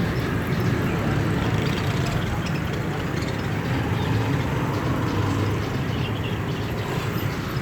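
Steady low background rumble, with no distinct calls or impacts standing out.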